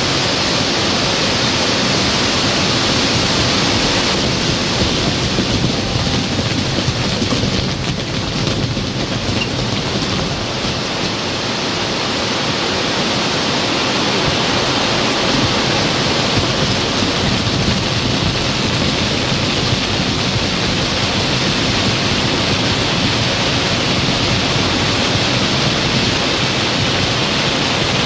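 Maltese ground fireworks (nar tal-art): rows of spinning firework wheels spraying sparks, making a loud, steady rushing hiss.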